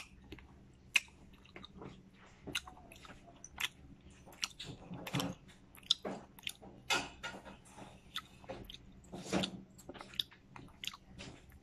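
A person chewing small seedless red grapes, with irregular wet mouth clicks as the grapes are bitten and mashed.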